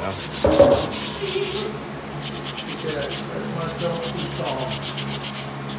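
Brass-bristle scrub brush scrubbing wet saltillo tile and grout in rapid back-and-forth strokes, a scratchy rasping, loudest about half a second in. The tile is being scrubbed with stripper to lift old sealer and whitewash stain.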